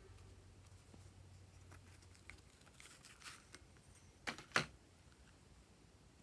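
Glossy slime being handled: faint sticky crackles and clicks, then two sharp pops about a third of a second apart a little past four seconds in.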